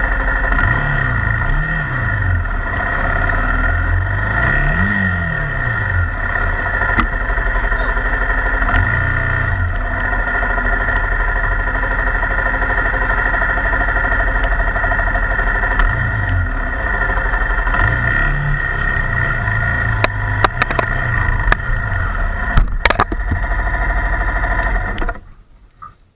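Honda XR250 Tornado's single-cylinder four-stroke engine running, its revs rising and falling several times, with a few sharp knocks near the end before the sound cuts off suddenly.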